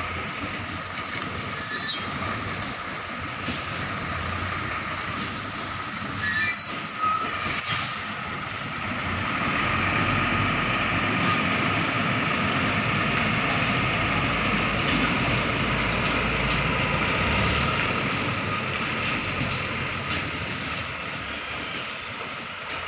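Hino truck tractor with a container trailer manoeuvring at low speed, its diesel engine running steadily under a mechanical whine. A sharp high-pitched brake squeal lasts about a second and a half, starting about six and a half seconds in.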